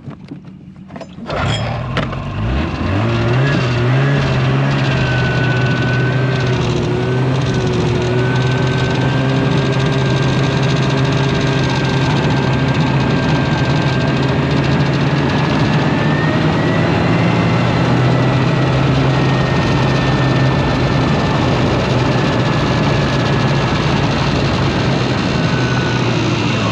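Polaris snowmobile engine running as the sled travels across the ice. It comes up to speed about two seconds in, then holds a steady, even note, and its pitch drops right at the end as the sled slows.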